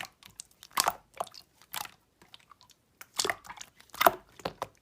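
Slime being worked by hand, giving irregular short crackling and popping clicks.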